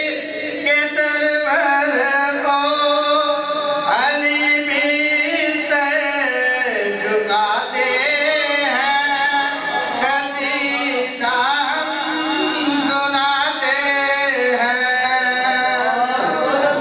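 A man sings a devotional Urdu poem into a microphone, in long, wavering, ornamented notes that bend up and down.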